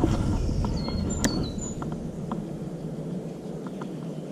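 A few short, high bird chirps about a second in, with a sharp click among them and a few faint ticks, over a low rumble that fades out about three seconds in.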